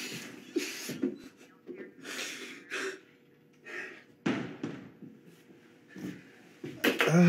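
A man breathing hard in ragged, uneven gasps, with a louder voiced gasp near the end.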